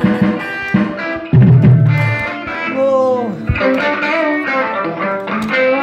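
Live electric guitar and drum kit jamming in a blues-rock style, with a bent guitar note about three seconds in. The drums are heavy in the first couple of seconds and then fall back, leaving mostly sustained guitar notes.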